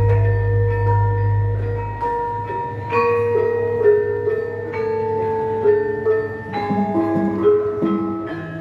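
Javanese gamelan ensemble playing a gending: bronze metallophones and gong-chimes strike a melody of ringing notes that change every fraction of a second. A deep low tone rings at the start and dies away after about two seconds.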